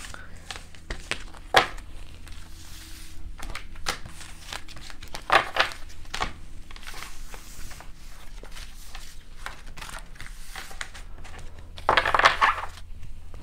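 Tarot and message cards being gathered up off a table by hand: a run of light slides, taps and papery scrapes, with a louder rustle of cards being stacked near the end.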